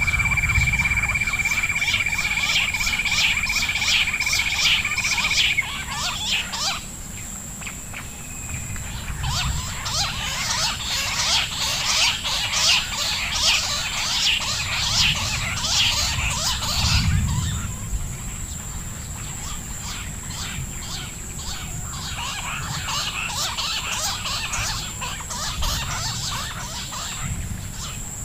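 Bush quail calling: fast runs of short, high chirps in bursts, with breaks about six seconds in and again past the middle, over a steady high-pitched whine. A steady whistle-like tone runs under the first five seconds or so.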